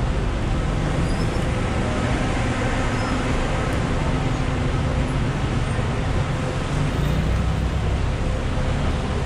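Steady vehicle traffic noise: a continuous low engine hum under an even rush.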